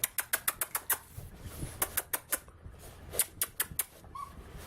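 Beagle puppies' toenails clicking and tapping on a hard floor as they scamper about, in three quick bunches of clicks. A faint short squeak comes near the end.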